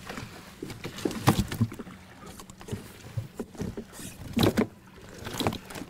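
Irregular knocks and bumps against a plastic fishing kayak's hull as things are handled in the cockpit, the loudest about a second in and again near four and a half and five and a half seconds, over a steady low hum.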